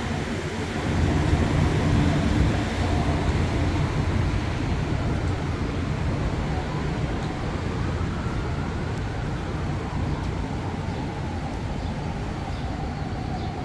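Steady city street traffic: cars and buses passing with a low rumble. In the second half a faint siren rises and falls.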